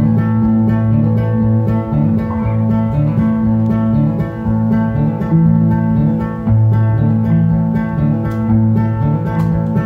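Acoustic guitar and electric guitar playing together in an instrumental passage without singing. Steady low bass notes change every second or so under sustained higher notes.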